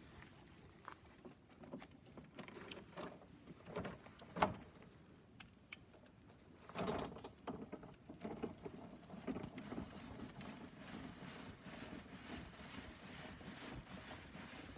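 Knocks and rattles of an RV awning's metal crank rod and center brace being handled and fitted. From about nine seconds in, a faint run of repeated light clicks as the awning's manual crank is turned to roll it out.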